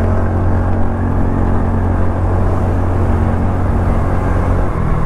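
TVS Ntorq scooter's single-cylinder engine running steadily on the move, under a steady rush of wind and road noise.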